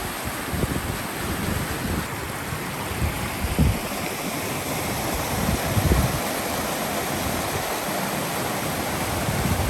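Steady rush of a fast mountain stream and waterfall, with gusts of wind buffeting the microphone, the strongest about three and a half and six seconds in.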